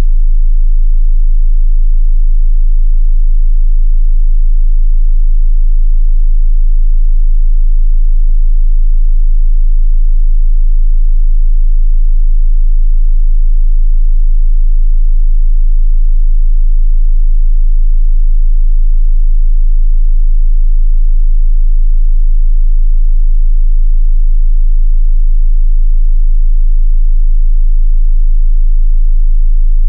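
Test tone: a pure 27 Hz sine wave, one very deep steady bass hum at a constant loud level, for testing how low a subwoofer reaches.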